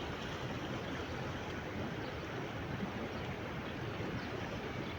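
Sea surf: a steady wash of waves with no distinct breaks standing out.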